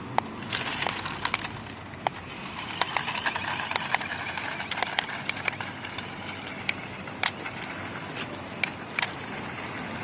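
Budget two-wheel-drive RC toy Jeep driving over uneven road: its small electric motor whines while the plastic body and wheels give off irregular clicks and knocks.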